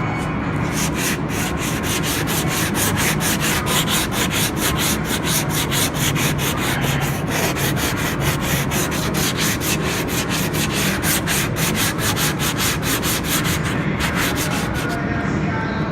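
A sanding block with sandpaper rubbed back and forth by hand over cured body filler on a bumper, in rapid, even strokes of about four a second. The strokes pause briefly near the end, then resume. This is the block sanding that levels the second coat of filler before priming.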